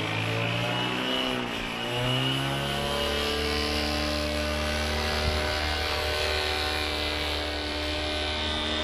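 Paramotor engine and propeller droning in flight. Its pitch dips during the first two seconds and then holds steady.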